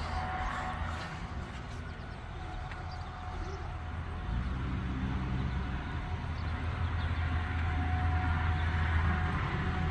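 Vehicle engine running, a steady low hum that shifts to a slightly different pitch about four seconds in.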